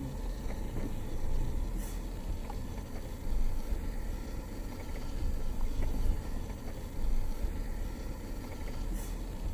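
Low rumble inside the cabin of a 2019 Mercedes-Benz G-Class creeping over a rough forest track: engine and tyres over uneven ground, swelling and easing every second or two, with a couple of light clicks.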